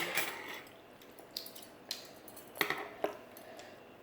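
Four or so light clinks of eating utensils against a dish, spaced out, with quiet rustle between.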